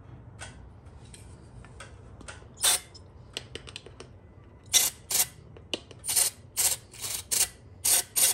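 Aerosol brake cleaner sprayed in short hissing bursts through an oil passage of a Nissan VG30DE engine block, flushing leftover metal bits out of the oil galleries. One burst comes early, then a rapid run of about eight bursts in the second half.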